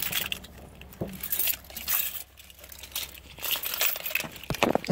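Irregular clinks and rattles with handling noise inside a vehicle cab, over a faint low steady hum.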